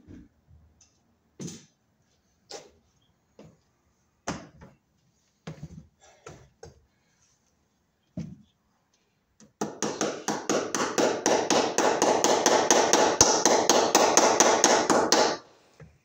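Hammer driving cable staples over Romex into a wooden ceiling joist. First a few scattered knocks, then about six seconds of rapid, even hammering at about five blows a second, which stops abruptly.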